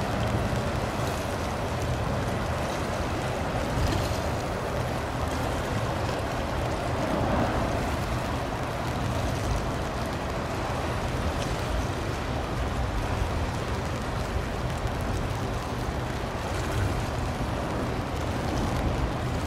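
Steady waterside ambience: a low, even rumble with a wash of wind and small waves, with no distinct events.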